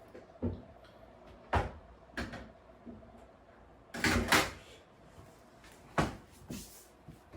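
A series of short knocks and clunks, about six in all, with the loudest a brief rattling cluster about four seconds in.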